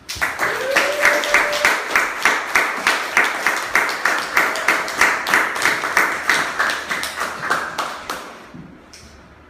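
A small audience applauding at the end of a performance. One nearby clapper stands out at an even pace, and the clapping thins and dies away about eight seconds in. A single voice whoops briefly about half a second in.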